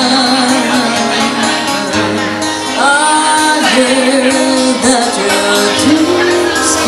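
Live acoustic band music: acoustic guitar and violin with a woman singing, the melody sliding up to a higher note about three seconds in.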